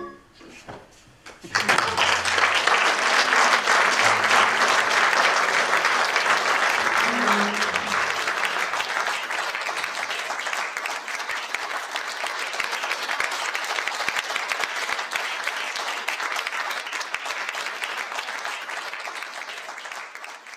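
Theatre audience applauding at the end of a play. The applause breaks out about a second and a half in, is at its loudest for the next few seconds, then slowly fades.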